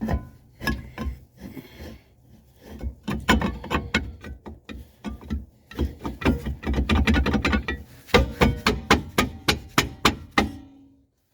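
Brake drum being fitted over a car's rear drum brake shoes and worked by hand: metal clunks and scraping, with a fast run of clicks from about eight seconds in. The shoes are already rubbing lightly inside the drum.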